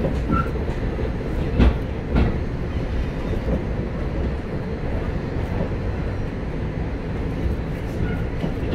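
Ansaldo-Sirio low-floor tram heard from inside the passenger car while running along the track: a steady low rumble of wheels and running gear, with a sharp knock about a second and a half in and a weaker one shortly after.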